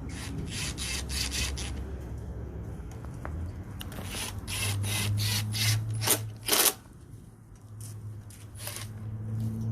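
Short scraping and rasping strokes from hand work on the mower engine's parts, coming in several quick runs, over a steady low hum.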